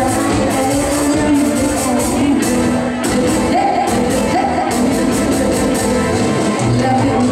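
A woman singing into a microphone over a live band of electric guitar, drum kit and keyboard, amplified through a PA in a large hall.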